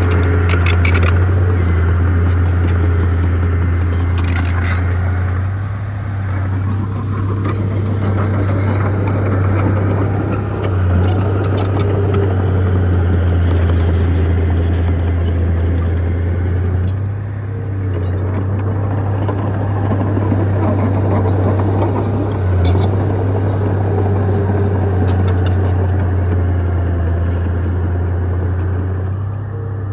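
Heavy diesel earthmoving machinery running steadily under work, a deep engine drone with scattered light metallic clicks.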